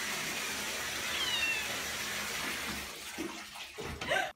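Steady rush of water in a toilet bowl, with a cat giving one short falling meow about a second in. From about three seconds in, bumps and scrabbling and splashing as the cat slips and tumbles into the bowl, loudest just before the end.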